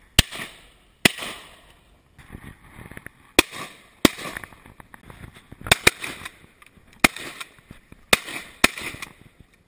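Several shotguns firing a volley of about nine shots over some eight seconds, irregularly spaced, a couple in quick pairs, each a sharp bang with a short echoing tail.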